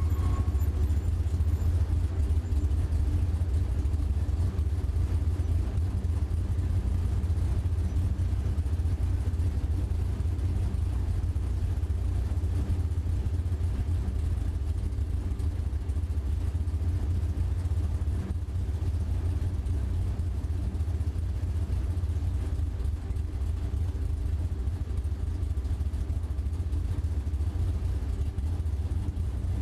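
A steady low engine rumble that eases off slightly over the stretch.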